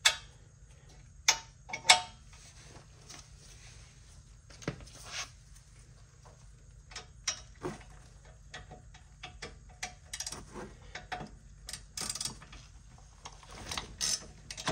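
Ratchet with a 7 mm hex bit clicking in short runs as the rear brake caliper bolts are undone, busiest in the last few seconds. A few loud, sharp metallic clacks near the start.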